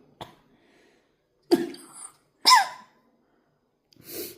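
Sneezing: two sharp sneeze-like bursts about a second apart, the second ending in a voiced sound that falls in pitch, then a softer, breathier one near the end.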